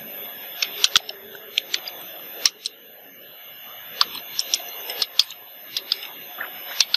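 Computer keyboard being typed on: irregular key clicks, with one louder stroke about two and a half seconds in, a short pause, then a steady run of clicks again.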